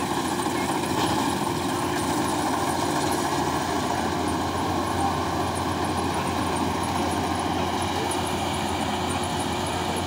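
Marksan Mudmaster MS-1200 tracked rice combine harvester running steadily as it cuts and threshes standing rice, its engine and machinery making a loud, even mechanical noise.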